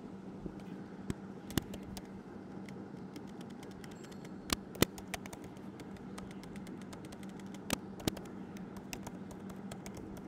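Typing on a computer keyboard: irregular key clicks, with a few louder strokes in two clusters, over a steady low hum.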